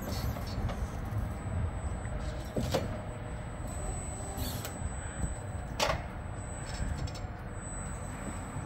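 Electric stand-up forklift working its forks under a wooden crate in a cargo van's bay: a low steady rumble with two sharp clunks, about three seconds in and again about six seconds in.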